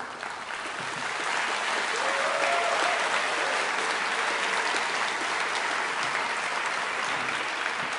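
Audience applauding, swelling during the first second, holding steady, and dying away near the end.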